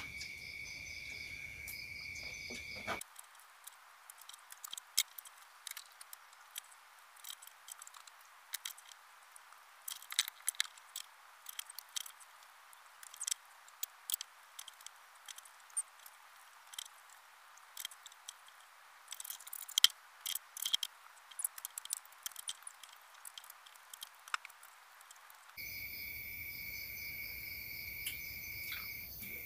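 A steady chorus of night insects, which breaks off after about three seconds. What follows is a long stretch of scattered sharp clicks and clinks of eating from a plastic plate. The insect chorus returns shortly before the end.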